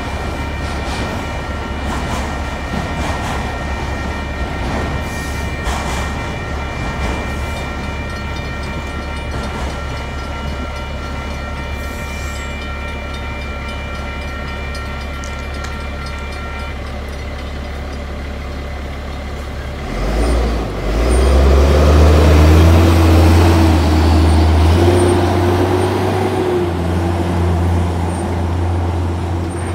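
Railroad crossing warning bells ringing over the low rumble of the tail of a freight train passing; the bells stop about halfway through. A few seconds later a heavy truck's engine pulls away across the tracks, the loudest sound, its pitch rising as it accelerates.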